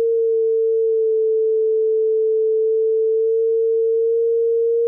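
Electrosmith Daisy Pod playing a pure sine tone just above concert A (440 Hz) from a Pure Data oscillator patch. The pitch is set by the Pod's rotary encoder, each click adding one hertz, so as the knob is turned the tone barely creeps upward and otherwise holds steady.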